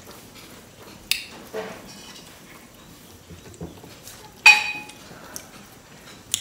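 Metal dinner plates and bowls clinking as rice is scooped from them by hand: a few light clicks, and one louder clink about four and a half seconds in that rings briefly.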